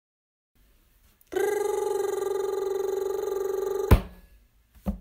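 Alarm clock bell ringing steadily with a fast trill for about two and a half seconds, cut off by a sharp knock as a hand slaps the clock. A small knock follows near the end.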